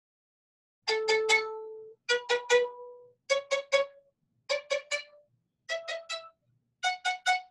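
Violin played with ricochet bowing up an ascending scale, starting about a second in. Each note is bounced three times off the string in quick succession, six groups in all, each a step higher in pitch than the last.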